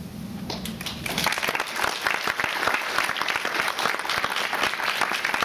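Audience applauding, starting about a second in and going on steadily.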